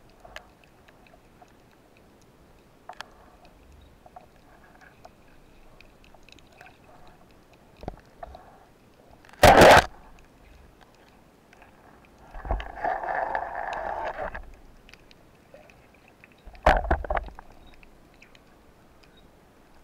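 Speargun firing underwater about halfway through: one very loud, sharp crack as the shaft is released. A few seconds later there is a longer rush of noise, then another short loud burst, with faint ticks and clicks between.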